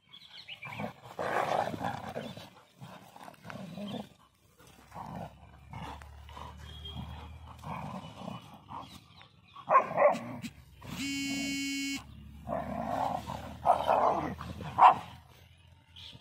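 Dogs play-fighting, growling and barking in irregular gruff bursts. About eleven seconds in, a steady tone lasts about a second.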